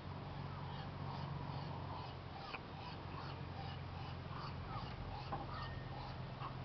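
Muscovy duckling peeping: a rapid run of short, high calls, over a steady low hum.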